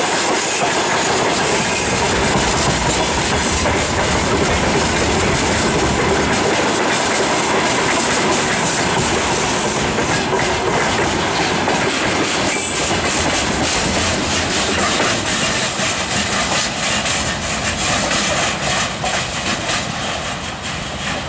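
Freight train wagons rolling past, their wheels clattering steadily over the rail joints with constant rumble and rail noise. The sound begins to ease off near the end.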